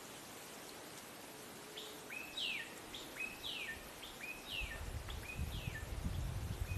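A bird calling over and over, about once a second, each call a short level note followed by a quick falling whistle. A low rumble comes in near the end.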